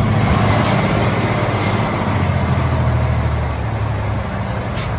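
A log truck's diesel engine pulling steadily under load, with three brief hisses, one less than a second in, one near two seconds and one near the end.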